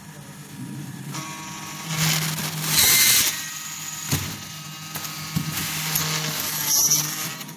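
Automatic floor-wiper assembly machine cycling: a low motor hum that swells in stretches, with loud bursts of compressed-air hiss from its pneumatic valves about three seconds in and again near the end, and a sharp click just after four seconds.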